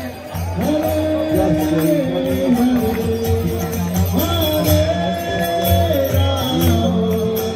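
Devotional kirtan: a group sings long, gliding lines with a steady drum beat and small hand cymbals clashing regularly, played over loudspeakers.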